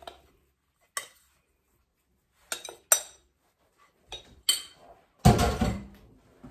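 A metal spoon knocking and scraping against a glass mixing bowl as crumbly pie-crust dough is turned out, in a few sharp separate clinks. About five seconds in comes one louder, deeper thud.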